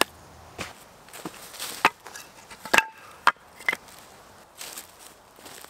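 Split firewood logs being stacked on a woodpile: a string of sharp, hollow wooden knocks as log is set down on log, several in all, the loudest a little before the middle.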